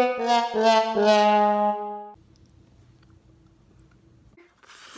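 A short brass music sting: a few quick notes ending on a lower, longer held note that stops about two seconds in. A faint hum follows, and a brief burst of noise comes near the end.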